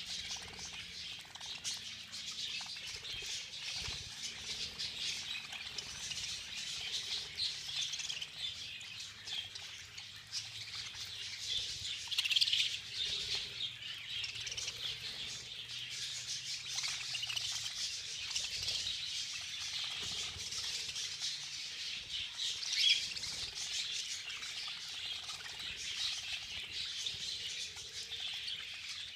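A flock of budgerigars chattering and chirping together, a dense, continuous twittering, with wings flapping now and then.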